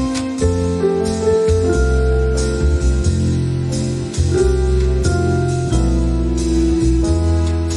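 Background music: held keyboard notes over a pulsing bass beat.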